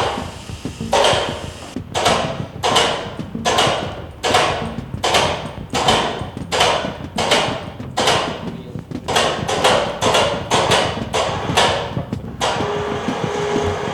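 Steady hammer blows on the wooden frame of a danjiri festival float, about twenty strikes at roughly one and a half a second, knocking its joints apart during dismantling. The blows stop shortly before the end, leaving a steady hum.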